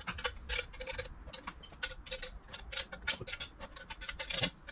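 A 12 mm ratcheting wrench clicking as bolts are tightened down: a quick, uneven run of light clicks, several a second.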